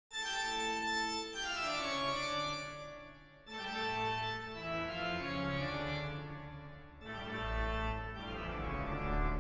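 Music of sustained, organ-like chords that comes in abruptly out of silence, each phrase swelling and then fading, with a new one starting about every three and a half seconds.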